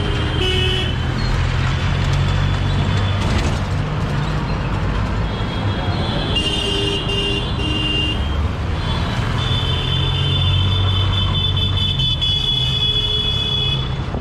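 Busy street traffic: engines rumbling with vehicle horns sounding over them, short toots about half a second in and again around six to eight seconds in, then one long held horn from about nine and a half seconds almost to the end.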